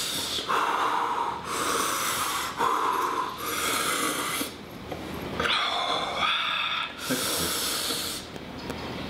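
A man breathing hard through his mouth, a rapid run of loud in-and-out breaths about one a second, from the burning pain of having eaten a Carolina Reaper pepper.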